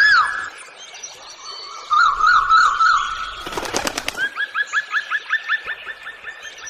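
Birds calling: a loud rising-and-falling whistle at the start, then a warbling trill, a brief rattling burst about halfway through, and a fast series of short rising chirps, about four a second, to the end.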